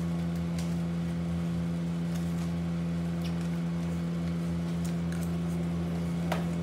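Steady electrical or mechanical hum of a room appliance. Faint scattered clicks of a plastic spoon and food container as someone eats.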